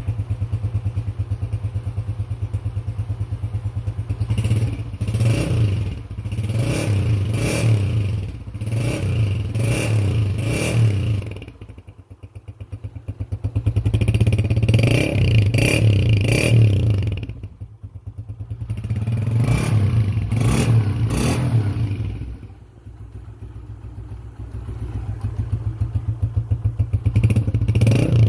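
Honda CG125's single-cylinder four-stroke engine through an AHL-3 silencer, idling with an even rapid thump and revved repeatedly: a run of short throttle blips, then several longer revs that fall back toward idle between them.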